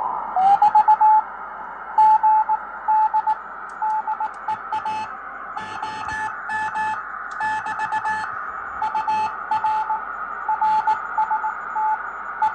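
Super RM RockMite QRP transceiver sounding Morse code: a single tone keyed on and off in dots and dashes, with clicks at the key strokes, over a steady hiss of receiver noise.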